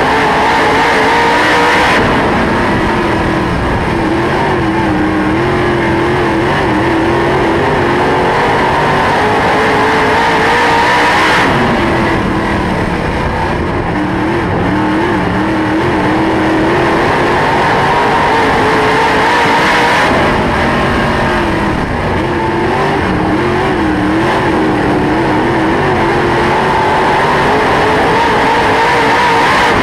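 Dirt late model race car's V8 engine at racing speed, heard from inside the cockpit, its pitch rising and falling every several seconds as the driver gets on and off the throttle around the oval. Other race cars' engines run close by.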